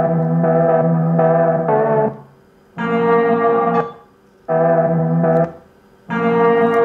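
Smartphone ringtone previews picked up close to the phone's speaker: short melodic snippets that each cut off abruptly, four different tunes in turn with brief silences between them.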